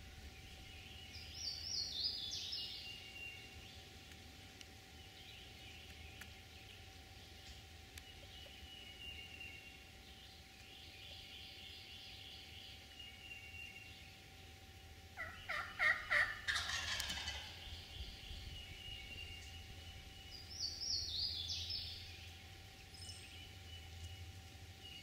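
A wild turkey gobbler gobbling once about fifteen seconds in: a loud, rapid rattling call.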